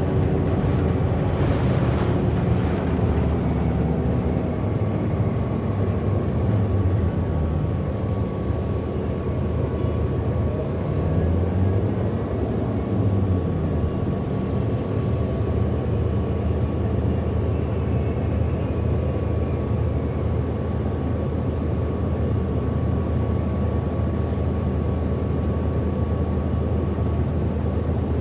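A 2008 Orion NG hybrid-electric bus running, heard from inside: a steady low drivetrain rumble with a thin, steady high whine throughout, and fainter whines that rise in pitch in the middle as the bus speeds up.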